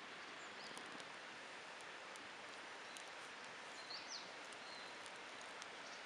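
Small wood fire of twigs and pine needles burning under a salt slab, with occasional faint crackles over a steady outdoor hiss. A bird chirps briefly about half a second in and again around four seconds in.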